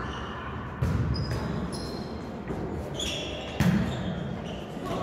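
Volleyball being struck twice, once about a second in and again past three and a half seconds, each a sharp thump that echoes through a large hall. Short squeaks of sports shoes on the court floor come between the hits.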